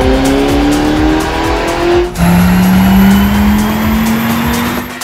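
Audi R8 engine at full throttle on a chassis dyno, rising in pitch as it pulls through a gear, dropping back about two seconds in at a shift, then pulling up again. Background music with a steady beat runs underneath.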